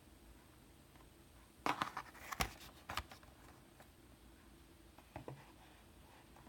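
Handling noise: a quick run of clicks and rustles about two seconds in, and a couple of fainter clicks near the end.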